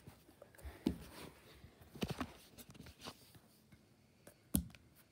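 A few short, soft knocks and handling rustles, the loudest about four and a half seconds in, from objects being handled and set down on a carpeted floor.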